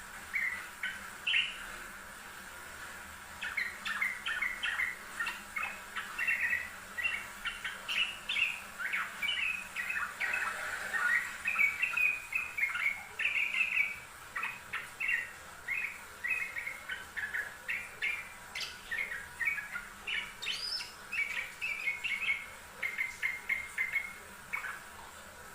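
Yellow-vented bulbul (trucukan) singing: a couple of short notes, a brief pause, then a long, busy run of quick chirping phrases that lasts almost to the end.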